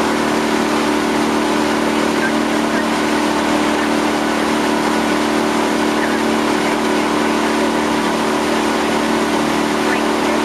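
Outboard motor of a small launch running steadily at an even pitch, with a constant hum.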